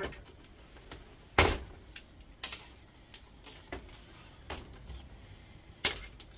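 Hand tools at work on an induction hob's copper coil: about five sharp snaps and clicks, roughly a second apart, the loudest about one and a half seconds in.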